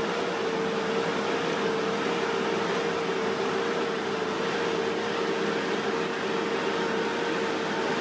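Steady machine noise: a constant drone with one unchanging hum-like tone over an even hiss.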